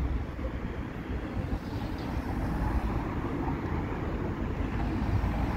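City street noise: a steady rumble of road traffic, with no single vehicle standing out.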